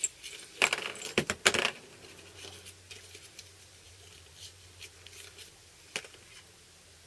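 Small metal drill bits and their little plastic case being handled: a quick flurry of clicks and rattles about a second in, then a few scattered light clicks.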